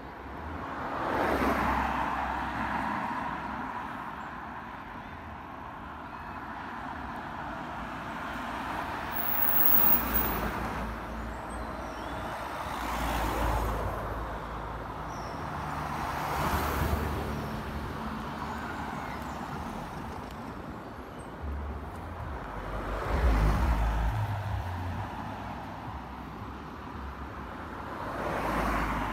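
Road vehicles passing one after another, about six in all, each swelling and fading as it goes by. The loudest, about two thirds of the way through, carries a deep rumble.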